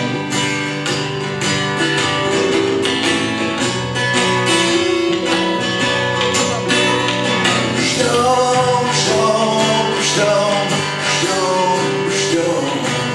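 Live folk-rock band playing an instrumental passage, led by strummed acoustic guitar with a regular beat and held melody notes over it.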